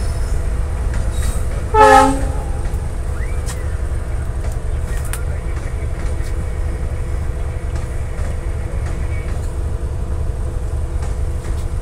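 Steady low rumble of a diesel locomotive and passenger coaches rolling past on the next track, with one short train horn blast about two seconds in.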